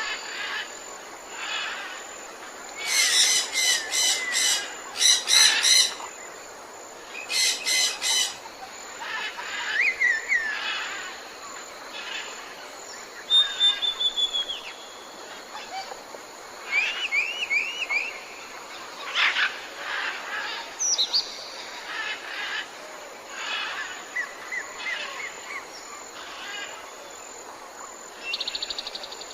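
Several birds calling and chirping, overlapping, in jungle ambience: bursts of loud, rapid repeated notes about three to six seconds in and again around eight seconds, with short rising whistles, chirps and trills through the rest, over a steady background hiss.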